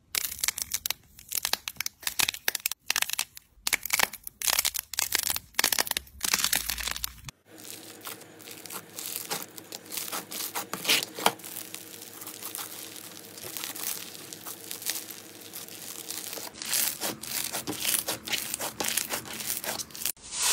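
Hands crushing crunchy slime: first sharp cracking snaps as the hard crust on blue slime balls breaks under the fingers, then, about seven seconds in, a dense continuous fine crackling as pink crunchy slime is squeezed and pulled apart.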